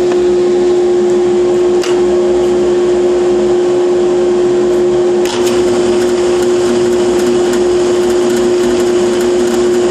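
Steady drone of workshop machines: the shop's dust-collection vacuum and a drill press running as its bit bores wheel holes into a wooden 2x4 toy-car body. A couple of short knocks come about two and five seconds in.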